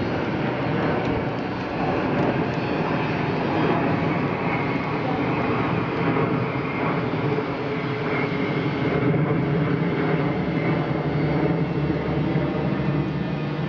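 AgustaWestland AW109 helicopter's twin turbine engines and rotors running: a loud, steady drone with a high turbine whine.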